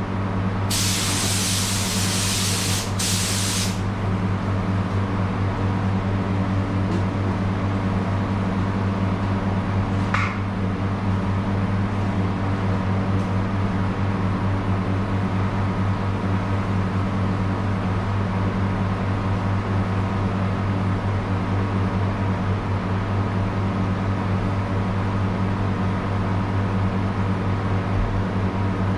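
Iwata WS400 spray gun hissing in two spray passes, about three seconds in all, as clear coat goes onto the repaired bumper. A steady low machine hum runs underneath, with a single click after about ten seconds.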